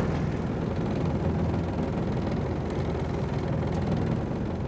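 A fishing boat's inboard engine running steadily at low speed, a continuous low hum.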